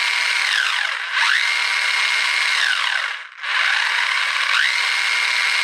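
A 1/16-scale brushless RC car's motor and drivetrain whining as the wheels spin freely off the ground under throttle. A held high whine winds down about half a second in, then it is revved up to a steady whine again and let fall near three seconds in, cuts out briefly, and is run up and held once more.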